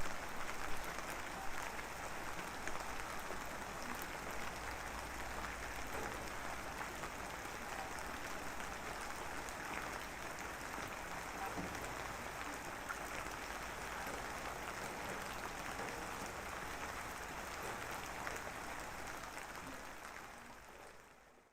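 Steady rain falling in a dense, even patter, fading out near the end.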